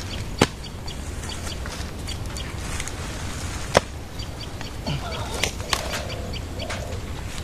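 A garden spade striking into the soil twice, about three seconds apart, each a single sharp knock. Small bird chirps repeat in the background.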